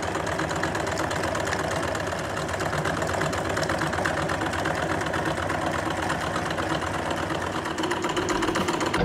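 Electric drill running at part speed, its trigger held partly in by a C-clamp, driving a homemade spray paint can shaker: a steady motor sound with a fast, even mechanical knocking as the can is shaken back and forth.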